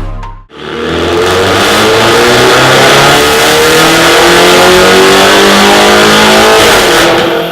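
BMW F30 330i's turbocharged four-cylinder through an Armytrix aftermarket exhaust, accelerating hard: the engine note climbs steadily for about six seconds, then drops off near the end as the throttle is lifted.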